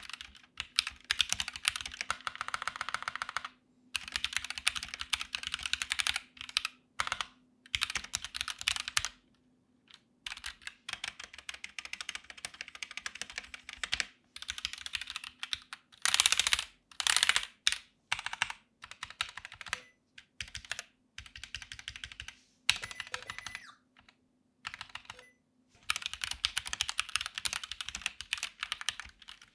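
Typing on a DeepCool KG722 65% mechanical keyboard with stock Gateron switches and foam sandwiched between plate and PCB: fast runs of keystrokes broken by a few short pauses, with virtually no spring ping.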